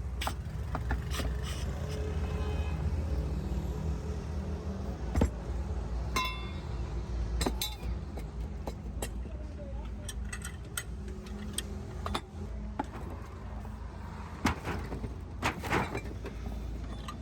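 Workshop ambience: a steady low rumble of vehicles and engines, with scattered metal clinks and knocks, one of which rings briefly like struck steel about six seconds in.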